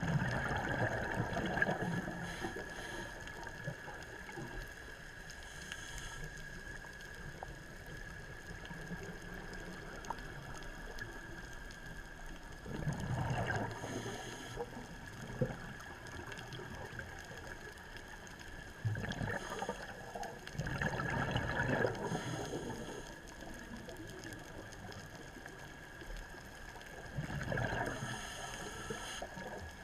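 Underwater, a scuba diver's exhaled bubbles gurgle up from the regulator in several bursts a few seconds apart. A faint, steady high tone runs underneath.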